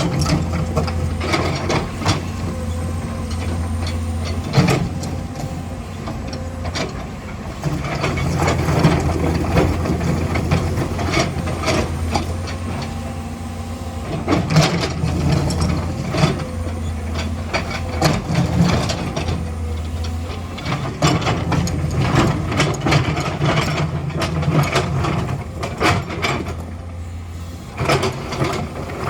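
Hydraulic excavator's diesel engine running at work, its drone rising for stretches of several seconds under hydraulic load, with repeated clanks and knocks of the bucket and rock.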